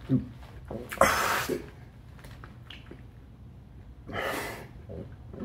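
A man's short, sharp breaths, three of them with quiet between.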